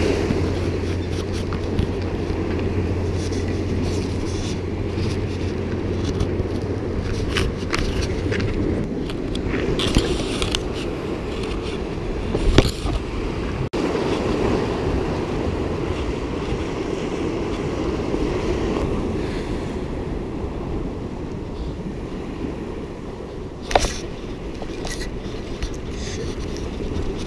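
Waves washing and breaking over jetty rocks, a steady low rumble of surf, with a few sharp clicks, the loudest about halfway through and near the end.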